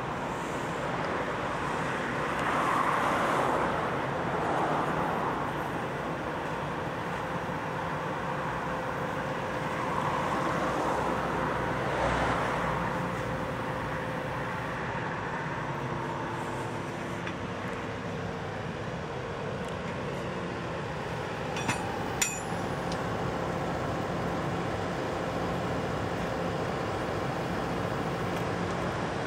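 Road traffic passing a roadside construction site, with vehicles swelling past a couple of times over a steady engine hum. A pair of sharp metallic clanks comes about two-thirds of the way through.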